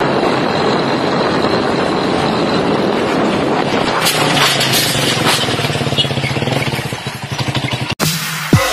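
Small motorcycle engine running hard under a wheelie, with steady rushing road noise. It cuts off abruptly near the end, and a quick swoosh effect falling in pitch follows.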